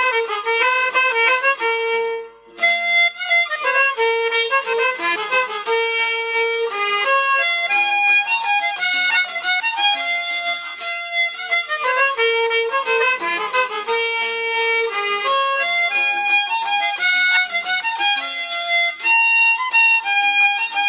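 Instrumental waltz led by fiddle, played by a traditional Irish band, with a short break in the melody about two and a half seconds in.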